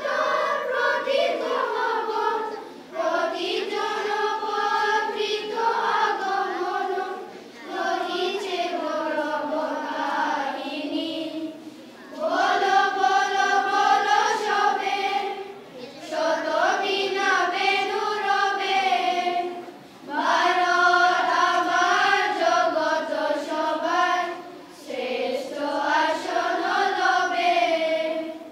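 A children's choir of boys and girls singing a patriotic song together. The song comes in phrases of about four seconds, each followed by a short pause for breath.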